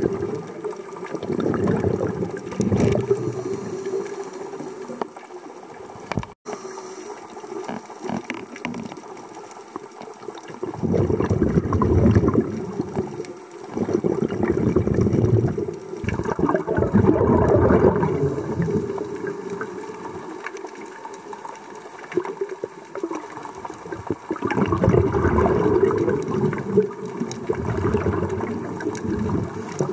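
Scuba regulator breathing heard underwater: several bursts of exhaled bubbles a few seconds each, with quieter stretches between breaths.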